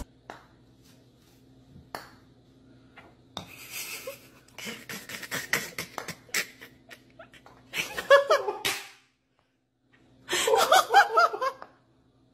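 A putter tapping golf balls, a few sharp clicks and knocks, then a person laughing in two bursts, about two thirds of the way through and again near the end; the laughter is the loudest sound.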